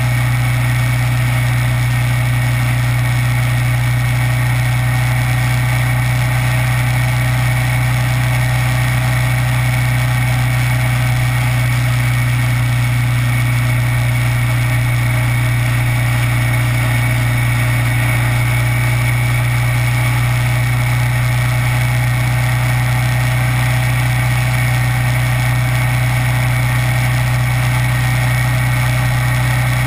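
Kawasaki Vulcan 900 motorcycle's V-twin engine running at a steady, unchanging pitch, a constant drone with no revving or gear changes.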